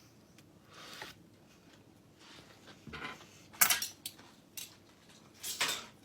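Crockery and cutlery being handled: a handful of short clinks and clatters, the sharpest about halfway through.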